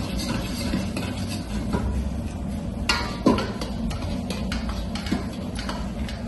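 Metal ladle scraping and knocking against a wok during stir-frying, with one louder clank a little after three seconds in, over a steady low hum.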